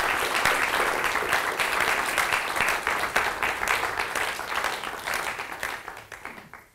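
Audience applauding, many hands clapping at once. It fades near the end and then cuts off.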